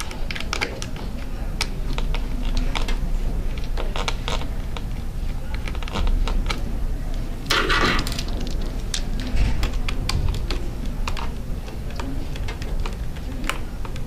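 Small screwdriver clicking and tapping against the plastic underside of an HP Mini 5103 netbook while the keyboard screws are backed out, with handling knocks from the laptop. A longer, louder noise comes about halfway through.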